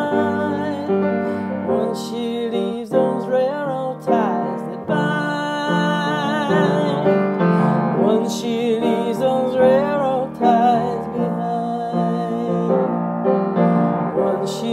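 A song played on piano, with a woman's voice holding long, wavering notes over it.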